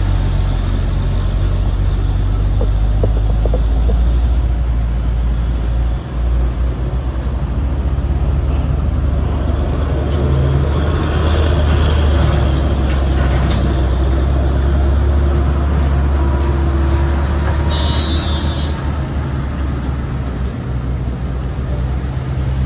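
Heavy vehicle's engine running with a steady low drone amid road noise, dipping briefly about six seconds in.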